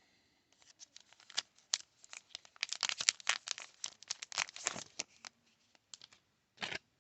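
Plastic wrapper of a baseball card pack being torn open and crinkled: quick irregular crackling that builds to its densest in the middle, then one more short crinkle near the end.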